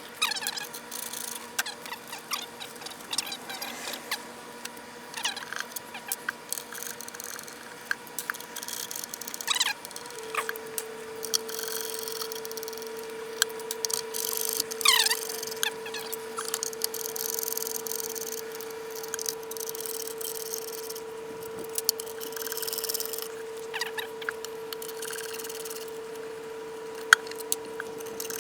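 Prying and scraping at the silicone-sealed face of an MDF subwoofer box: scattered clicks and knocks with short squeaks as the silicone and wood rub and give. A faint steady tone runs underneath.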